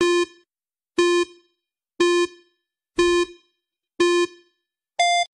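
Electronic countdown beeps: five short identical beeps one second apart, one for each number from 5 down to 1, then a higher-pitched beep a second later marking the end of the countdown.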